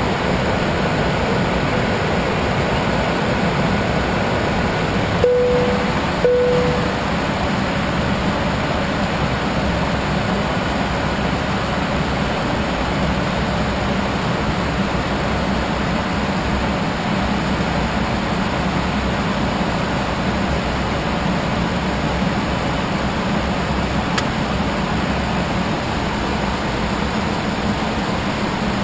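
Steady rush of airflow and engine noise inside a private jet's cockpit in flight. About five seconds in, two short electronic tones sound about a second apart.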